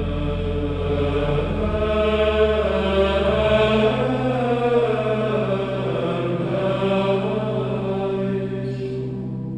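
Background music: voices singing a slow chant in long held notes over steady low sustained tones.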